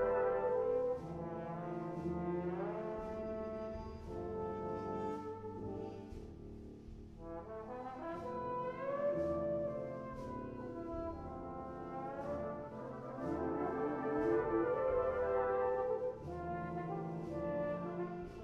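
British-style brass band playing, with a trombone standing out over the full brass sound. The lines swoop upward in pitch several times, over a light percussion tick that keeps a steady beat.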